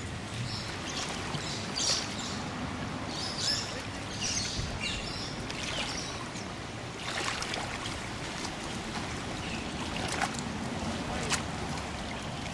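Floodwater lapping and trickling at a grassy edge, a steady wash of water noise, with a few short bird chirps and small splashes.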